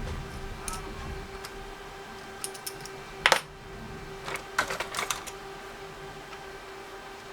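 Small hard clicks and clatter from a TI-83 Plus graphing calculator being handled and opened: one sharp click about three seconds in, then a quick run of clicks a second or two later. A faint steady hum runs underneath.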